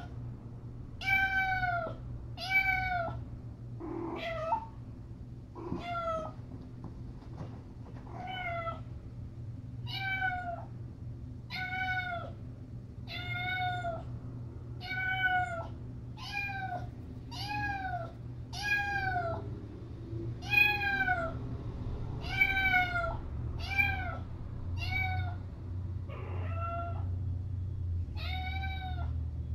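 A cat meowing over and over in a steady string of separate calls, about one every second or so, each call dipping in pitch.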